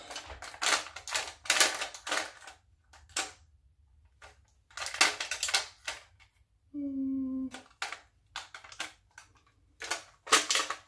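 Plastic makeup cases and products clicking and clattering as they are handled and sorted through, in quick clusters of taps with pauses between. A short hummed sound from a person comes about seven seconds in.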